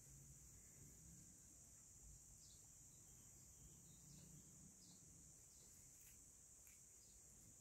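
Near silence outdoors: a faint, steady high-pitched chirring of crickets or similar insects, with a few soft ticks and rustles scattered through it.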